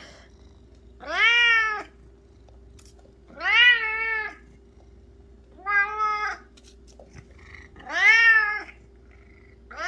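Domestic cat meowing loudly and repeatedly: four long meows about two seconds apart, each rising then falling in pitch, with a fifth starting right at the end. A steady faint hum runs underneath.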